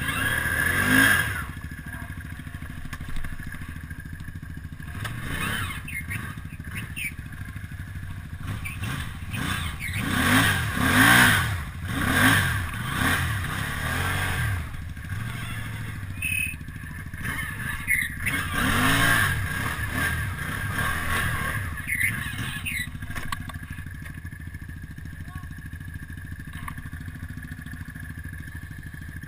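Snorkeled ATV engine revving in repeated bursts, the pitch climbing and dropping, as the quad churns through deep mud. The hardest revs come in the middle, and it settles to a lower idle near the end.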